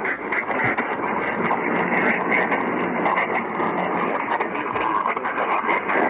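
Radio receiver pulling in a weak, distant signal: a steady hiss of static and noise with no clear voice.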